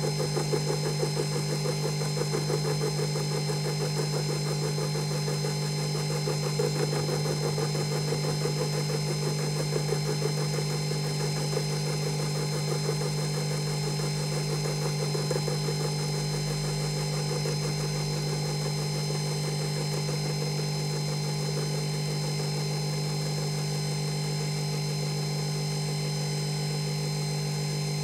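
Emco Unimat 3 milling machine running steadily while an end mill takes a light, slow cut across an aluminium casting. The cut sounds rougher and more uneven for about the first half, then settles to the smooth, steady hum of the motor and spindle.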